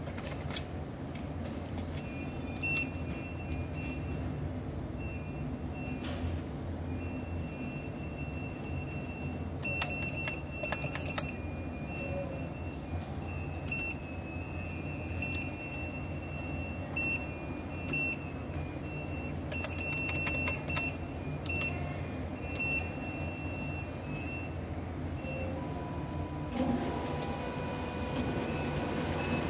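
Hitachi cash-deposit ATM running its internal mechanism: a steady low mechanical hum under a high-pitched whine that keeps breaking off and starting again, with occasional clusters of clicks. Near the end a new, lower steady tone comes in.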